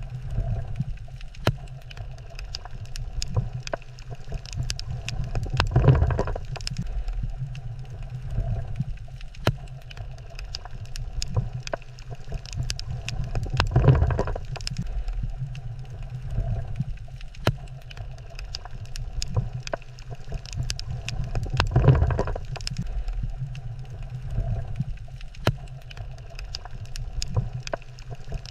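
Underwater coral reef ambience: many scattered sharp clicks over a low rumble that swells about every eight seconds.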